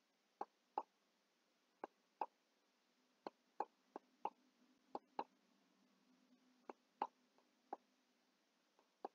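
Faint, irregular clicking of a computer mouse button, about fifteen clicks, several in quick press-and-release pairs, as handwriting is drawn stroke by stroke on a digital whiteboard.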